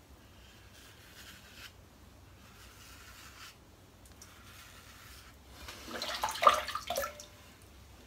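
Gem Micromatic single-edge safety razor scraping through thick shaving lather on a scalp, a few separate strokes. About six seconds in comes a louder, brief clattery noise.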